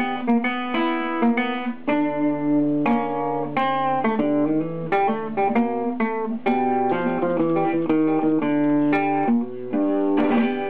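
Background music: a guitar plucking a melody of separate notes, each ringing and dying away.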